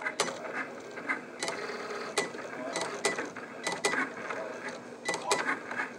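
Cricut Explore Air 2 cutting machine drawing with a fine-point pen: its motors whir as the carriage and mat shuttle back and forth, with frequent sharp clicks at uneven spacing.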